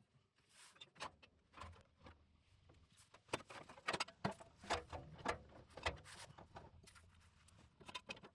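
A string of irregular sharp clicks and knocks, closely bunched in the middle, with the sound cutting off near the end.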